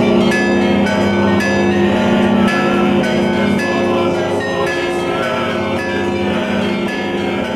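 Orthodox church bells ringing: many bells struck in quick succession, a few strikes a second, their tones overlapping and ringing on.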